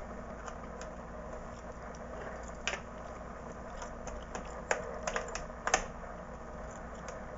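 Plastic laptop memory access cover being handled and fitted back onto the underside of the laptop: a few light plastic clicks and taps, one about two and a half seconds in and a small cluster around five seconds in.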